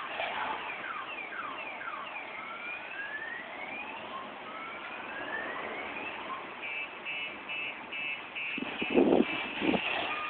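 Electronic alarm siren cycling through its tones: quick repeated falling sweeps, then slower rising sweeps, then from about seven seconds in a fast run of beeps, about two to three a second. A few short, louder bumps come near the end.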